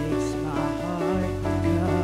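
Live worship band music: an instrumental stretch of a contemporary worship song, with sustained chords over a steady bass.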